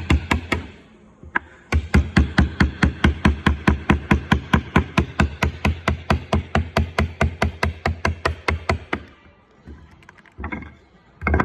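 Rapid, evenly spaced sharp knocks, about five a second, with a steady low hum beneath them; they break off briefly about a second in and stop around nine seconds, with a few scattered knocks near the end.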